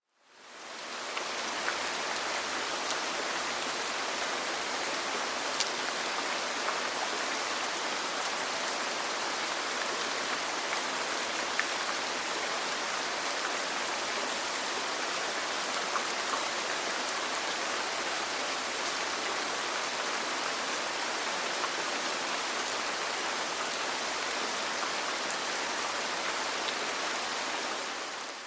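Steady rain falling on a roof, an even hiss with a few faint ticks of single drops. It fades in over about a second at the start and fades out at the end.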